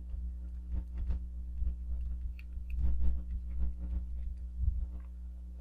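Light ticks and taps of a stylus on a drawing tablet while a row of symbols is written, over a steady low electrical hum.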